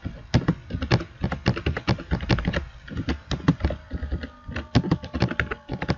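Typing on a computer keyboard: a rapid, uneven run of key clicks.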